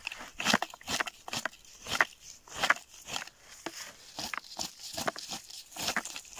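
Plastic cranberry scoop combing through bog moss and grass: a run of irregular short crunches and clicks as the scoop's teeth strip the plants and cranberries knock into it.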